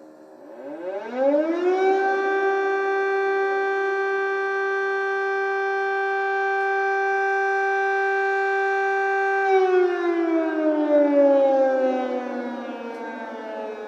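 Ukrainian air raid siren winding up over about a second to a steady tone, holding one pitch for about eight seconds, then winding down in a slow falling glide.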